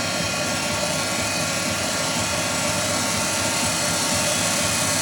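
Amada Wasino GLS-50A optical profile grinder running with its variable-speed wheel head turning: a steady machine whir carrying several steady tones, with no change in speed.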